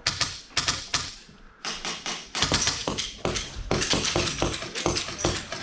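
Airsoft guns firing indoors: an uneven string of sharp cracks and taps of shots and BBs striking surfaces, coming thicker from about halfway through.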